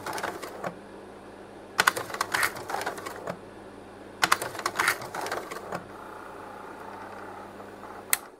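Leica Pradovit P150 slide projector with its cooling fan humming steadily while the slide changer clatters through slide changes, each a quick run of sharp mechanical clicks lasting a second or so, twice in full. Near the end one sharp click sounds and the hum stops with it.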